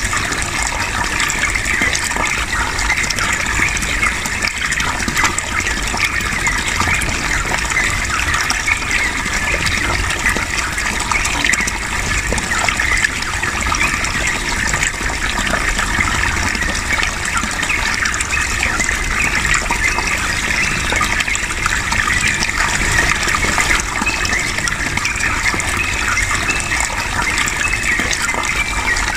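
Running water gushing steadily, with the bubbling song of yellow-vented bulbuls (trucukan) mixed in.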